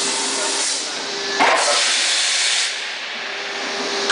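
Injection moulding machine hissing steadily as the bucket mould opens, with a sudden clunk and burst of hiss about a second and a half in. A steady hum drops out at that moment and returns near the end.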